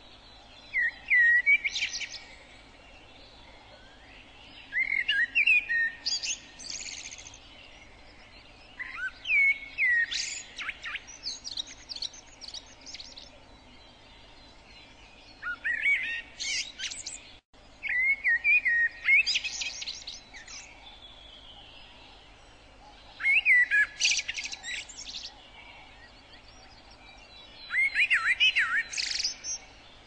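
A songbird singing short, separate phrases, seven in all, about every four to five seconds. Each phrase opens with a few slurred whistled notes and ends in a quick, high twitter.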